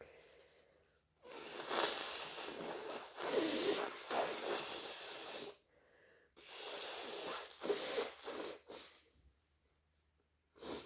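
A person blowing their nose hard and wet, in two long blows of several seconds each, then a brief sharp burst near the end.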